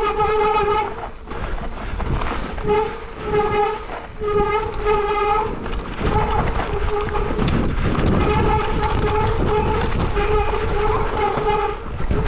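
Mountain bike disc brakes squealing in many short bursts of about half a second as the brakes are applied and released on the descent, one steady tone with overtones each time, over the rough rumble of tyres on the trail.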